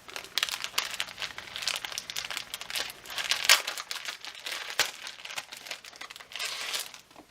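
Packaging crinkling and rustling in irregular bursts as an item is handled and unwrapped, with one louder crackle about halfway through.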